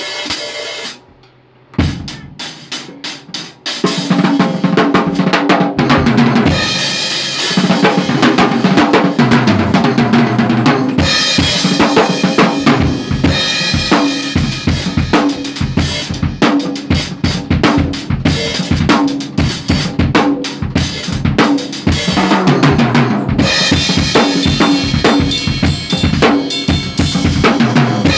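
Acoustic drum kit played with sticks: a few separate hits and a brief pause, then a steady groove of bass drum, snare and cymbals from about four seconds in.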